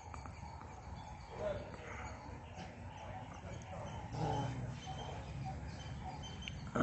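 Faint outdoor background with a few short animal calls, like barks or yelps, the clearest about a second and a half in and again around four seconds in.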